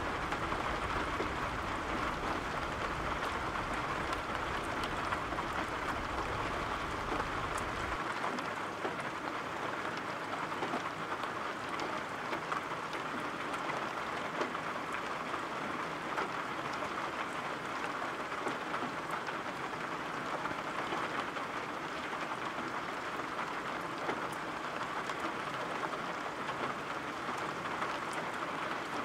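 Steady rain falling, an even patter with fine drop ticks. A low rumble sits underneath at first and cuts off sharply about a quarter of the way in.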